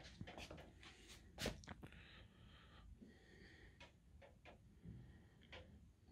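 Near silence, with faint, irregular taps and clicks; the loudest comes about a second and a half in.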